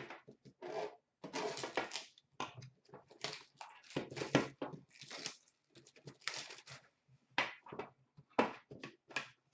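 Plastic shrink wrap crinkling and tearing as it is stripped off a sealed box of hockey cards, in quick irregular crackles and rustles.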